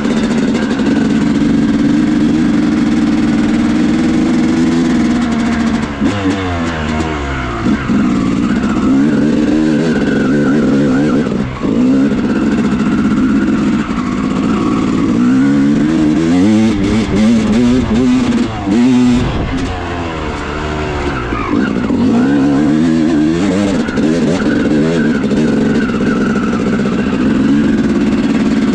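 2000 Yamaha YZ250 two-stroke single-cylinder dirt bike engine being ridden, freshly rebuilt with a new transmission. It holds steady high revs for about the first five seconds, then the revs repeatedly drop and climb again as the throttle is closed and opened.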